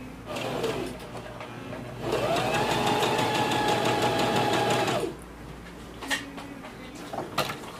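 Brother L14 sewing machine stitching through dark fabric: a short run near the start, then about two seconds in the motor speeds up, runs steadily for about three seconds, and winds down to a stop. A few light clicks follow.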